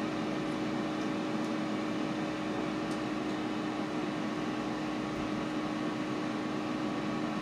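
Ninja air fryer running: a steady fan hum with a low, even tone.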